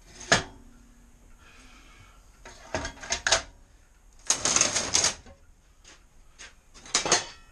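Sharp knocks and a clattering scrape of hard parts being handled and fitted together: a single knock, then a quick cluster, a longer scrape lasting most of a second, and two more knocks near the end.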